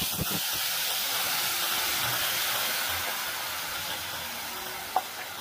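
Wet ground onion-tomato paste hitting hot oil in a pan: a loud sizzle that starts suddenly and slowly dies down, with a single knock near the end.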